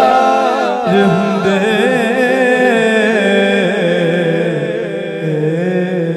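A man singing a Punjabi naat into a microphone, drawing out long, wavering melismatic notes.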